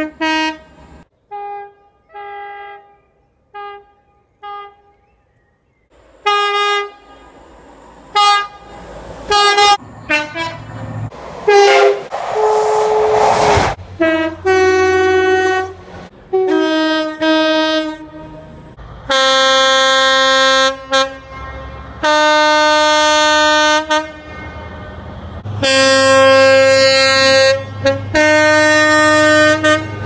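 A run of British train two-tone horns. First several short, faint toots, then louder short blasts. About two-thirds of the way through comes a brief rush of passing-train noise, and after it long, loud two-tone horn calls that alternate between a higher and a lower note.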